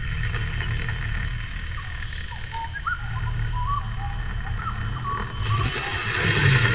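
Small birds chirping, short scattered calls over a steady low rumble; about five seconds in a loud rushing hiss sets in and holds.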